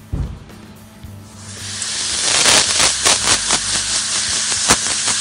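Dental air-polisher handpiece spraying a jet of air, water and abrasive powder, hissing loudly as it blasts stains off a copper coin. A short knock comes at the start, and the hiss builds up from about a second in.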